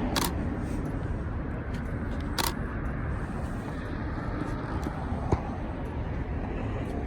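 Steady low rumble of vehicles, with two sharp clicks about two seconds apart and a small knock near the end.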